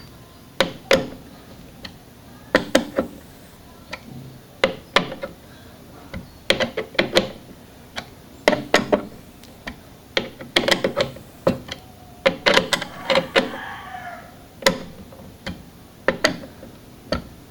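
Mounting screws being tightened by hand on a CPU cooler's AM4 backplate bracket: short bursts of sharp metallic clicking, about one burst every two seconds.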